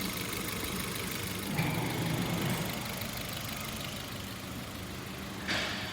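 Hyundai HB20 engine idling steadily, its accessory drive belt running on a worn tensioner that has lost its internal spring pressure and can no longer keep the belt fully taut. It gets a little louder about a second and a half in, and a brief burst of noise comes near the end.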